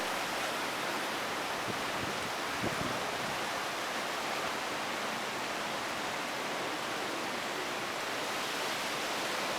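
Steady roar of hurricane wind and storm surf, an even rushing noise with no let-up.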